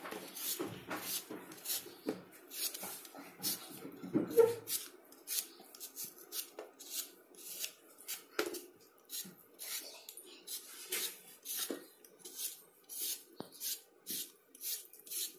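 Hand-held vegetable peeler scraping the skin off a raw potato in quick repeated strokes, about two a second.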